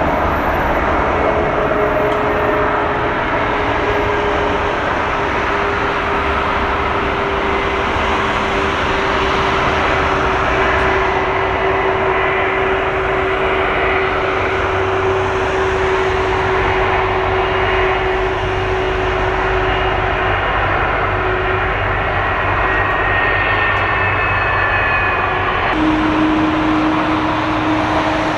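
Steady running noise of a moving vehicle: an even rumble and hiss with a faint steady hum that drifts slightly lower, then drops to a lower pitch near the end.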